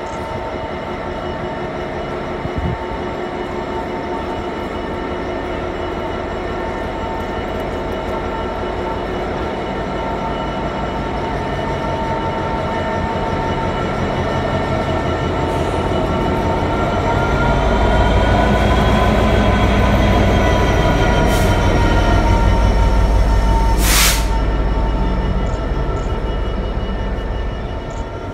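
GB Railfreight Class 66 diesel locomotive, its EMD two-stroke V12 engine running, passing close while hauling a rake of LNER Mk4 coaches. A deep engine rumble with a steady whine over it builds to its loudest as the engine passes, with a short sharp burst of noise near the end.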